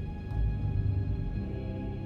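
Background music: slow, dark ambient music with sustained low notes and a deep bass pulse.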